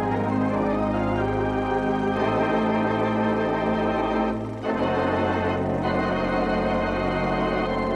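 Organ music: sustained held chords that change a couple of times.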